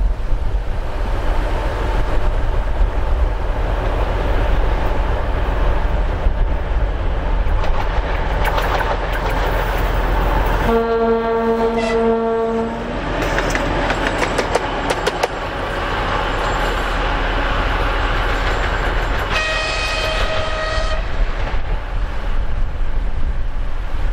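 M62 diesel locomotive running past close by, its two-stroke V12 diesel rumbling steadily and its wheels clicking over the rail joints. About eleven seconds in it sounds a low horn for about two seconds, and some eight seconds later a higher-pitched horn for about a second and a half.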